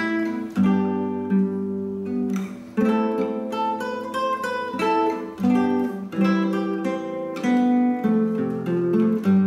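Background music: an acoustic guitar playing plucked and strummed chords.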